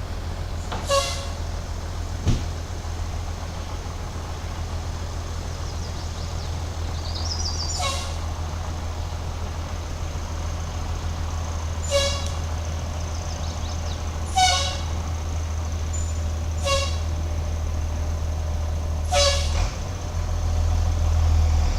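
Truck engine running steadily with a low rumble, with about six short, sharp, high-pitched sounds at irregular intervals over it.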